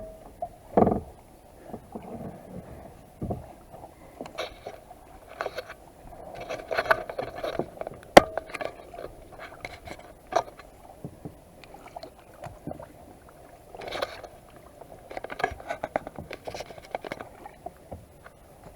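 Kayak paddling: irregular splashes and drips as the paddle blades dip into the water, with one sharp knock about eight seconds in.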